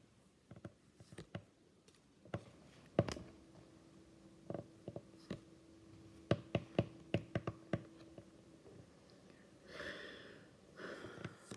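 Pokémon trading cards being handled and sorted by hand: a scattered series of short sharp clicks and taps, with two soft rustling swells near the end.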